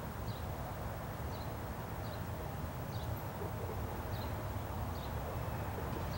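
Steady low outdoor rumble, with a small bird's short high chirp repeating at uneven intervals, about once a second.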